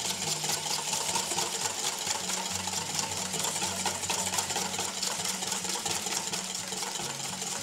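Wire whisk beating rapidly against the inside of a stainless steel mixing bowl, a fast, steady metallic clatter, as oil is whisked into balsamic vinegar to emulsify a vinaigrette.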